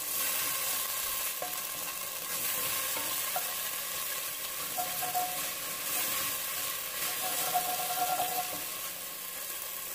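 Diced shallots and minced garlic sizzling in olive oil in an enamelled pot, stirred with a wooden spoon scraping across the browned bottom of the pot.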